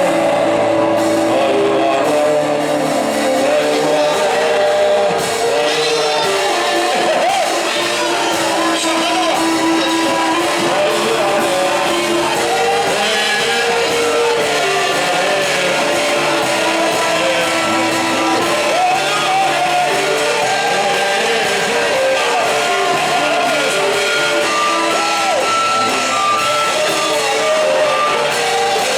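Live church worship music: voices singing with guitar and band accompaniment, steady throughout.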